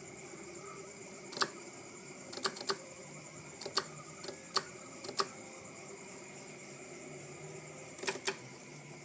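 About ten sharp clicks at irregular spacing, some in quick pairs, over a steady faint high-pitched electrical whine.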